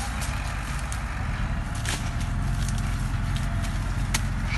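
Machete strokes chopping sugarcane stalks: several sharp knocks, the loudest about two seconds in and another near the end, over a steady low rumble.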